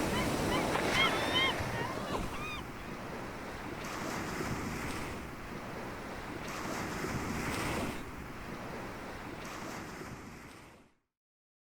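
Sea water washing and wind on the microphone, steady, with a few short high arching chirps in the first two or three seconds. It fades out near the end into silence.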